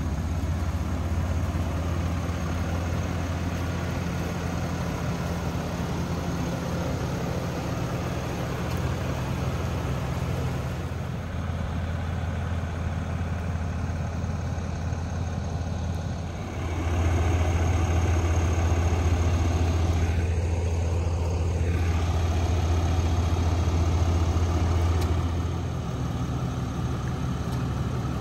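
Ram 2500 pickup's engine idling steadily; the idle gets louder about halfway through and drops back near the end.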